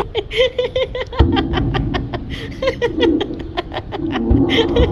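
Laughter: a quick run of short laughing bursts.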